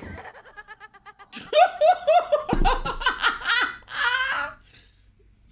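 A woman laughing hard: a quiet, quick giggle for the first second, then loud, hearty laughter from about a second and a half in that dies away near the end.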